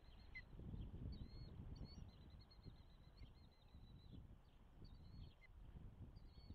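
Faint outdoor ambience: a low, uneven wind rumble on the microphone, with small birds chirping thinly and often in the background.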